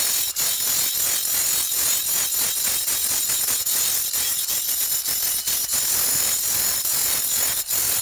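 Handheld angle grinder with a sanding disc running against the curved surface of a black stone bowl: a steady high grinding noise broken by many quick, irregular scrapes as the disc skims the stone.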